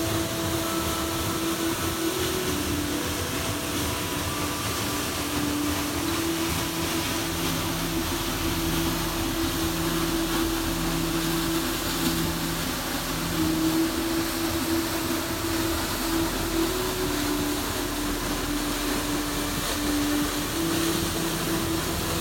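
Peričnik waterfall's water falling and splashing as a steady, even rush, with slow background music of long held notes playing over it.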